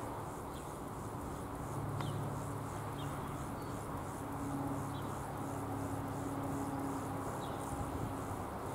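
Classic electromechanical warning bell of a Czech level crossing ringing in an even, steady rhythm while the crossing is active, with a low steady hum underneath.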